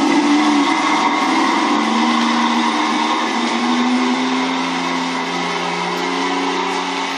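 Simulated King Tiger tank engine sound played by a Beier USM-HL sound module in an RC model tank, running steadily with its pitch stepping up and down a few times. It fades a little toward the end.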